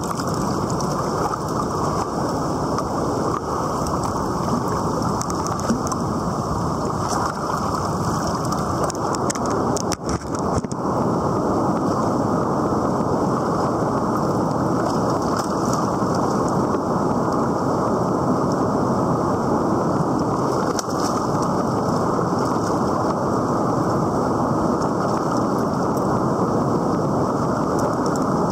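River rapids rushing steadily, an even wash of water noise.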